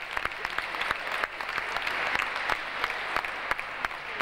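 Audience applauding: a steady patter of many hands clapping, with single sharp claps standing out.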